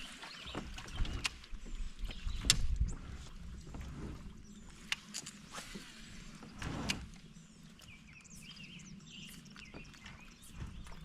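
Occasional sharp clicks and knocks from a fishing kayak and its gear, with faint chirping in the background.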